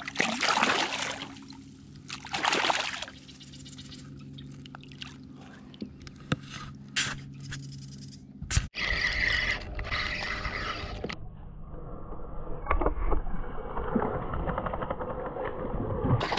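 A hooked largemouth bass splashing and thrashing at the water's surface beside a kayak as it is landed, in a few bursts over the first three seconds, then water trickling and dripping. About halfway through, the sound breaks off abruptly into a steady low rumble with small handling clicks.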